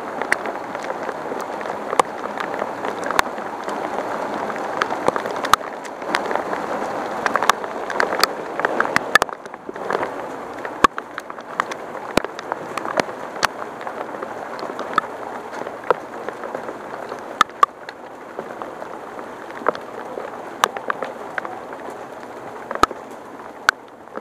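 Heavy rain falling steadily, with scattered sharp taps at irregular intervals.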